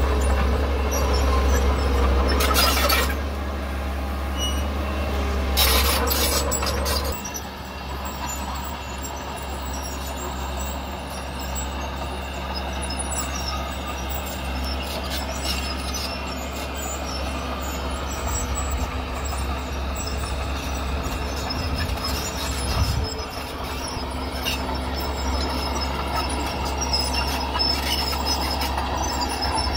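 Diesel engines of heavy earthmoving machinery, a bulldozer and a dump truck, running with a steady low drone. Two short hissing bursts come about three and six seconds in, the second one longer.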